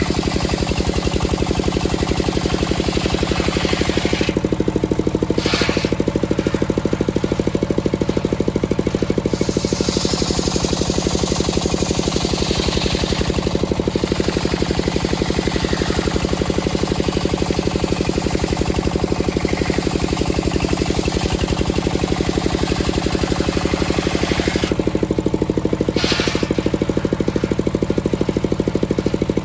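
Large engine-driven circular saw blade ripping through a teak beam on a homemade sawmill, the cutting hiss over the engine's steady, fast-thudding run.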